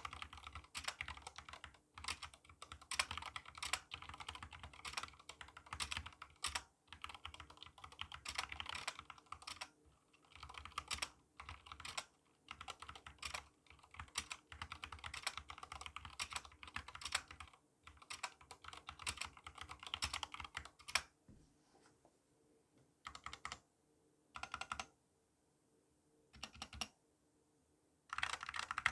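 Epomaker GK68XS mechanical keyboard being typed on: stock Gateron Black linear switches in a plastic case with a steel plate, under XDA keycaps, clacking in fast continuous typing. About two-thirds of the way through, the typing gives way to a few single key presses a second or two apart. The board's stabilizers are stock and unmodded, and the owner found them rattly.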